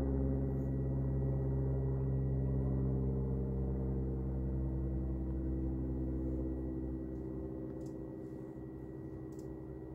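Background music: a sustained low, ringing chord like a gong or drone. It starts abruptly and slowly fades over the last few seconds, with a thin steady high tone above it and a few faint high ticks near the end.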